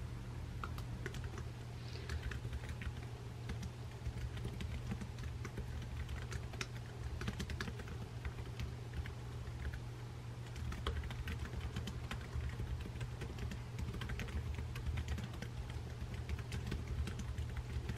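Fingers typing on a MacBook laptop keyboard: quick, irregular key clicks, over a steady low hum.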